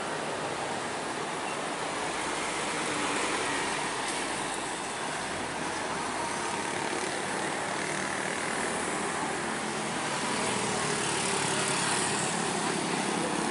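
Steady road traffic: cars, trucks and motorcycles passing, a continuous wash of engine and tyre noise.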